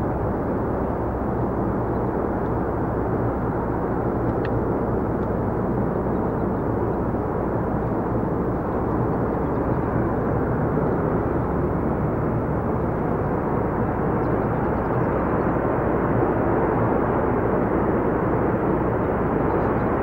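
Turbojet engines of the Snowbirds' CT-114 Tutor formation jets running steadily as the formation rolls down the runway for takeoff, growing slightly louder in the second half.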